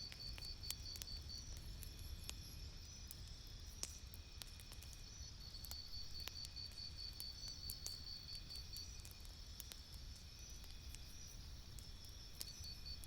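Campfire crackling: scattered sharp pops over a low rumble. A high, evenly pulsed chirping runs alongside, breaking off twice and resuming near the end.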